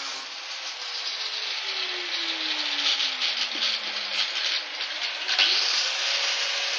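Handheld angle grinder grinding into sheet steel: a harsh, steady grinding noise. The motor's pitch drops about halfway through, then climbs back up.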